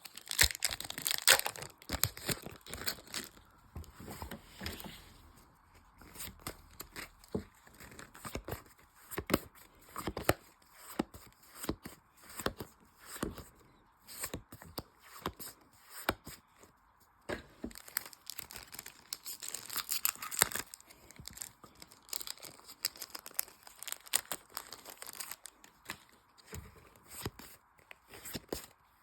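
Pokémon booster packs being torn open, the foil wrappers ripping and crinkling in irregular bursts, with many small crackles and clicks from the packs and cards being handled.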